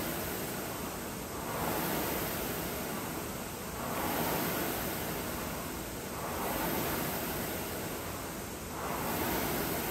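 Concept2 rowing machine's fan flywheel whooshing with each pull: a rush of air that swells and fades about every two and a half seconds, at a steady stroke rate.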